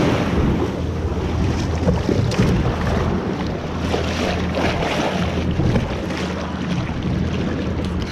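Shallow surf washing and splashing against the hull of a NuCanoe Frontier 12 kayak as it is launched through the shore break, with heavy wind rumble on the microphone.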